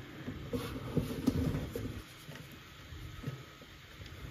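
Light clicks and knocks of a 3D-printed ABS part being handled and pushed onto a 3D printer's frame, several in the first two seconds and one more a little after three seconds.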